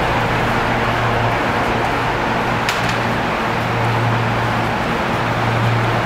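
Tobu Railway electric train, a steady low hum with running noise, and a single short click a little before the middle.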